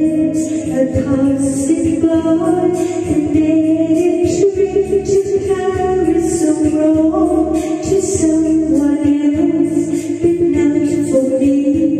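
A woman singing into a handheld microphone over a karaoke backing track, holding long notes that glide between pitches.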